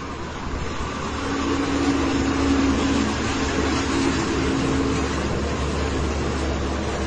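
Military trucks in a convoy driving past on the road: a steady engine drone with tyre noise that grows louder about a second in and stays loud as they pass.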